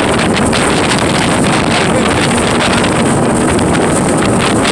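Motorboat engine running steadily under way, mixed with heavy wind buffeting the microphone.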